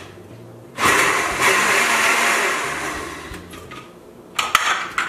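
Countertop blender puréeing whole kumquats with a little water. It starts about a second in, runs loud for a couple of seconds and winds down, followed by a few sharp clicks near the end as the jar and lid are handled.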